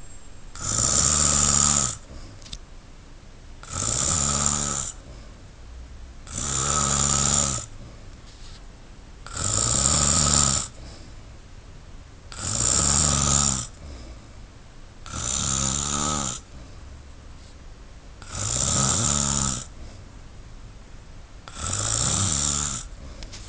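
A man snoring in his sleep: eight long snores, one about every three seconds, with steady breathing between them.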